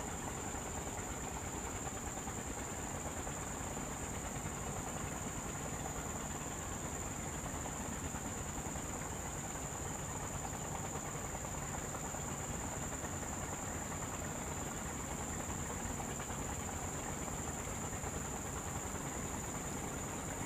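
Steady background noise: an even hiss over a low rumble, with a constant high-pitched drone.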